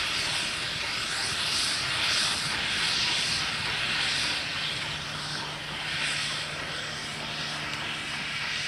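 GWR steam locomotive running light engine, its exhaust beats coming soft and regular with the rumble of wheels on rail, slowly fading as it draws away. A steady low hum joins about halfway through.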